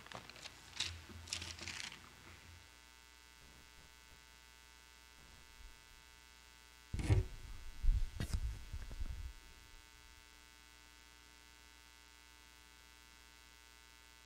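Steady faint electrical hum from the church sound system, broken in the first two seconds by soft rustles and clicks, and about halfway through by a cluster of heavy low thumps and knocks picked up by the pulpit microphone.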